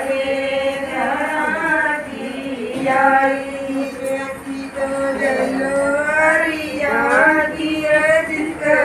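Female voice singing a Haryanvi jalwa pujan folk song, with long held notes that glide from one pitch to the next.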